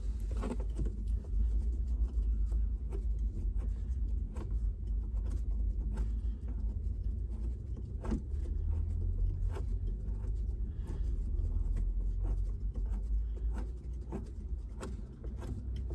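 Scattered small clicks and knocks of hands and tools working on car interior trim and fixings, over a steady low rumble.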